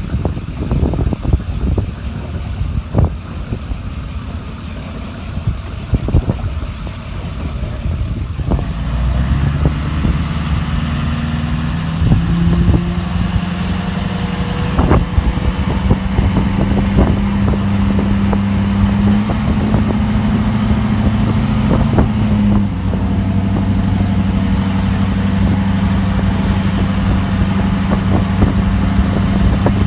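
Vehicle driving over rough ground. For the first several seconds there are irregular knocks and rattles, then from about nine seconds in the engine pulls steadily under load, its pitch rising a little before holding.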